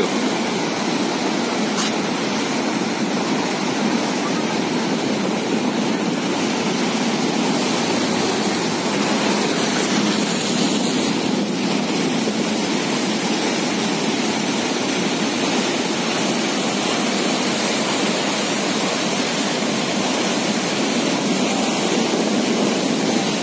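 Steady rushing of a river in full flood: fast, turbulent brown floodwater churning in standing waves.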